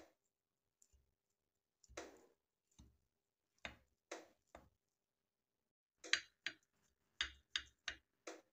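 Knife blade tapping against a ceramic plate as it cuts a block of sesame halwa into pieces: a series of faint, short clicks, spaced out at first and coming more quickly in the last couple of seconds.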